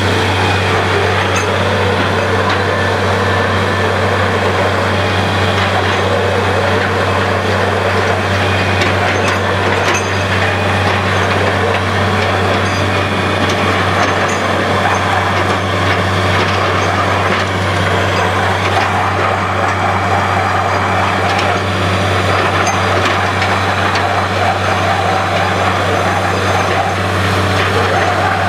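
Borewell drilling rig running steadily under power, a continuous loud machine noise with a deep, even hum that never lets up.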